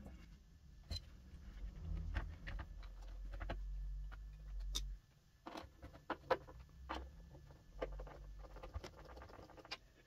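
Light handling clicks, scrapes and low rumble as a coaxial car speaker is set into a speaker box. About halfway through, a run of irregular sharp clicks follows as its mounting screws are driven with a hand screwdriver.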